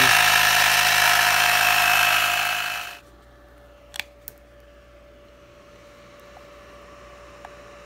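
Handheld cordless tire inflator's small electric compressor running steadily as it pumps up an e-scooter tire, set to just below 50 PSI. It cuts off abruptly about three seconds in. About a second later come two light clicks, and after that only a faint hum remains.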